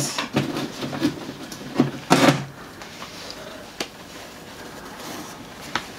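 Handling of a cardboard advent calendar compartment as a cloth bottle bag is pulled out and unfolded: scattered knocks and rustles, the loudest about two seconds in.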